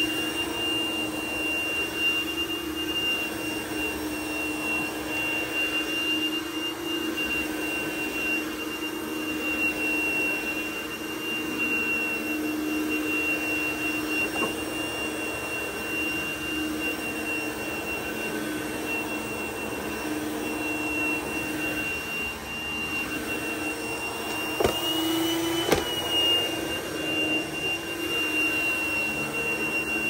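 Dyson DC01 upright vacuum cleaner running steadily with a high motor whine while pushed over plush carpet. Late on there are two sharp knocks, with the whine briefly rising in pitch between them.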